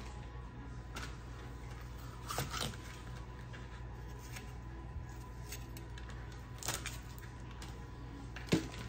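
A few light, scattered knife taps and clicks on a cutting board as a bell pepper is cut and handled, over a steady low hum.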